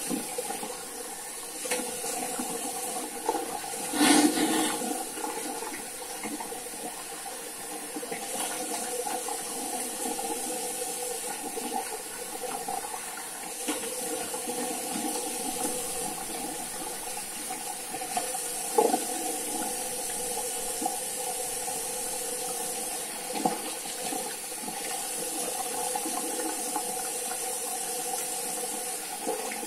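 Tap water running steadily into a bathroom sink, with a few louder splashes as a face is rinsed with water after a razor shave.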